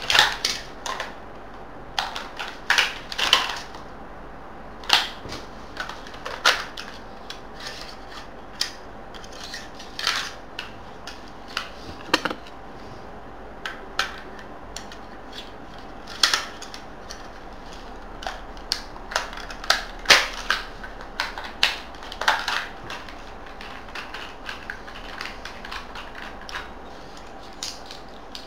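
Irregular plastic and metal clicks, clacks and rattles of a Jing Gong HK416 airsoft rifle as parts are taken off and fitted during a conversion, a few sharp knocks every couple of seconds.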